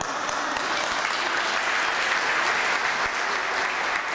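A small group of people applauding steadily.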